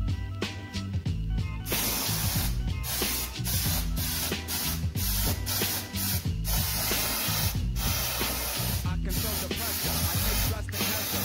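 Aerosol can of paint stripper spraying in a run of hissing bursts, starting about two seconds in, with short breaks between bursts. Background music plays underneath.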